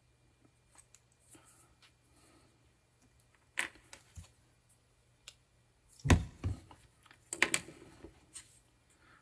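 Handling of a small metal volume-control potentiometer and a cotton swab on a cutting mat: faint rubbing and scattered light clicks, a sharp click about three and a half seconds in, and a cluster of louder knocks and taps between six and eight seconds in.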